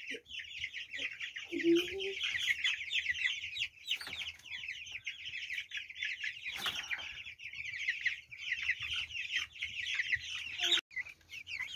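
A flock of chicks peeping together: a dense, continuous chorus of high-pitched cheeps, with a short gap near the end.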